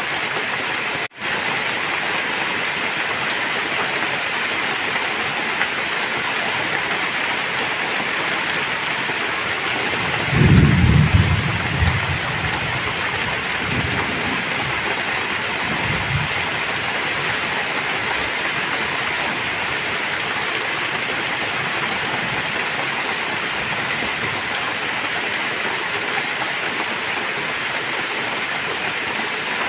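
Heavy rain falling steadily. About ten seconds in, a low rumble of thunder swells and dies away over a few seconds.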